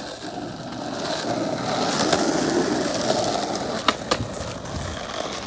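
Skateboard wheels rolling over asphalt, getting louder as the board approaches, then two sharp clacks of the board close together near the end.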